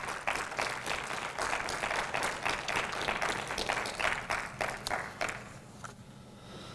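A small congregation clapping, the applause dying away about five and a half seconds in.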